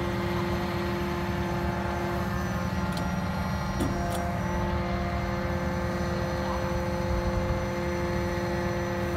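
A hydraulic static pile driver's power unit and hydraulic pump run steadily, giving a constant drone with a low hum and a steady whine on top. A few faint sharp metallic clicks come about three to four seconds in.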